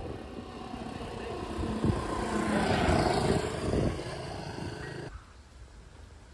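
A motor vehicle passing on the road close by: it grows louder to a peak about three seconds in, then fades away.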